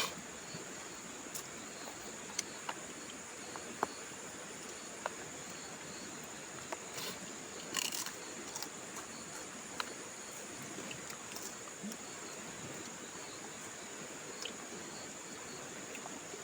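Steady high-pitched drone of an insect chorus, with a faint even hiss under it and scattered small clicks and pops, a few slightly louder ones about 4 and 8 seconds in.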